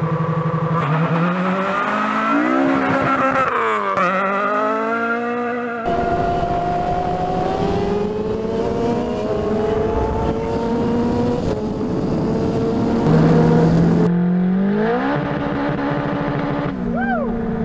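Car and sport-motorcycle engines accelerating hard in a few spliced clips: revs rise and drop back at gear changes. The sound changes abruptly about six seconds in and again around fourteen seconds, and there is a quick blip of revs near the end.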